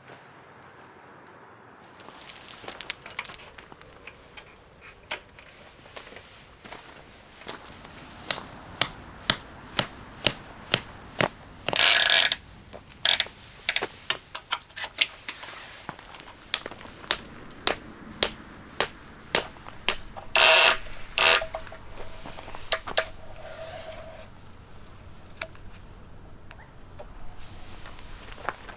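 A series of sharp mechanical clicks, about two a second, broken by a few longer rasping bursts.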